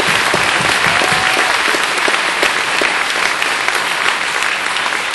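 Large audience applauding, a dense steady clatter of many hands clapping.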